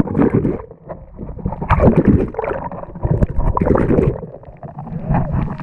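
Water sloshing and splashing in uneven surges, with two short lulls.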